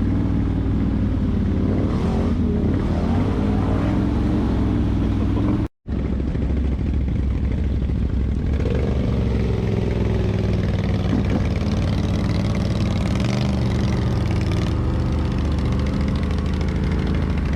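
ATV engine running steadily under way, its pitch shifting slightly with the throttle. The sound cuts out completely for a split second about six seconds in.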